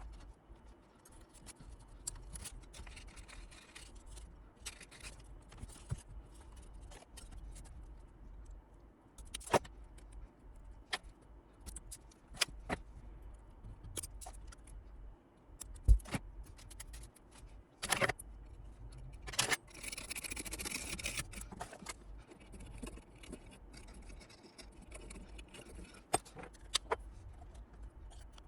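Scattered clicks, taps and light scrapes of small tools and parts being handled on a workbench, with a longer rustling scrape about twenty seconds in.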